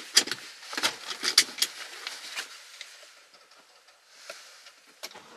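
Clothing rustling and a quick series of light clicks and knocks as someone moves about in a car seat, dying away after two or three seconds. A faint hiss follows, with a single click near the end.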